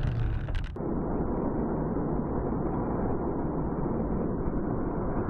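Steady road and engine rumble of a car driving on a highway, heard from inside the car through a dashcam. A little under a second in it changes abruptly to a duller, muffled rumble.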